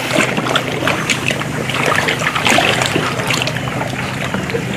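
Water splashing and trickling against the side of a kayak, in many small irregular splashes.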